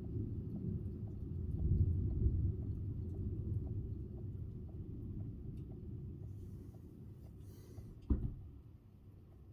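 Thunder rolling, a low rumble that swells about two seconds in and slowly dies away over several seconds. A single sharp knock near the end.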